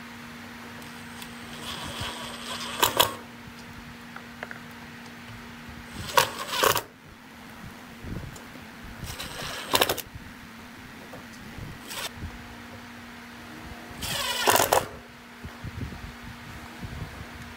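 Cordless drill driving screws through a recessed metal handle into a plywood speaker cabinet, in four short runs of about half a second each, with small clicks of the bit and screws between them.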